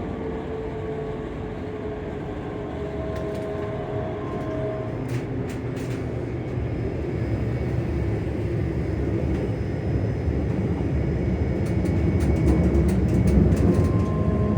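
Hitachi Class 385 electric multiple unit running, heard from inside: its traction motors hum with steady tones that come and go over a rumble of wheels on track. The rumble grows louder toward the end, and two short runs of sharp clicks sound in the middle and near the end.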